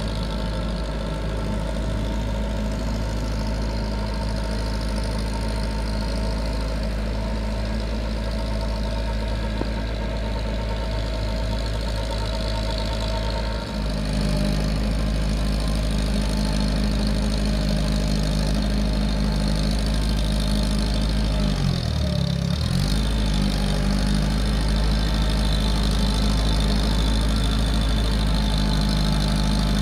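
Massey Ferguson 185 tractor's four-cylinder diesel engine running steadily as the tracked tractor works through a waterlogged paddy field. A little over two-thirds of the way in, the engine note briefly drops and then picks back up.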